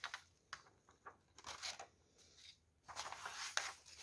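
Sheets of paper rustling as they are tipped and shaken, with dry chrysanthemum seed and chaff sliding across them. Several short rustles, then a longer one about three seconds in.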